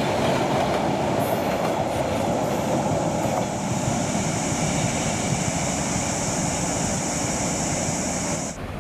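Freight train of container flatcars rolling past at speed, wheels rumbling and clacking over the rails. A steady high-pitched tone rides above it from about a second in and stops suddenly near the end.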